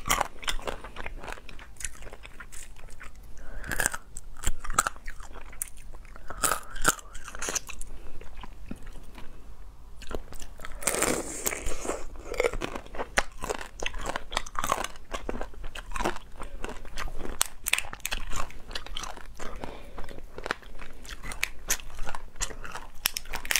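Cooked hairy crab (Chinese mitten crab) shell and legs cracking and crunching as they are bitten and pulled apart, with chewing. Irregular sharp snaps run throughout, with a denser stretch of crackling about eleven seconds in.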